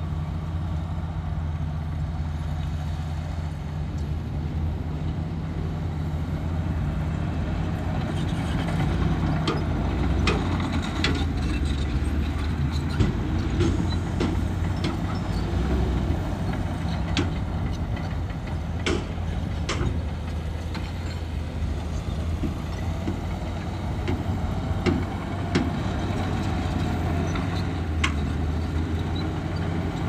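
Diesel engine of heavy earth-moving machinery running steadily, with scattered sharp metallic clanks and knocks through the middle and later part.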